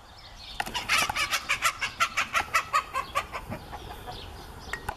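A chicken squawking in a quick run of loud, sharp calls, about five a second, that goes on for nearly three seconds and then trails off into a few fainter calls.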